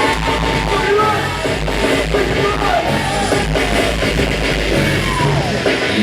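Loud dance-battle music from the DJ over the sound system, with a heavy, steady bass and voices over it.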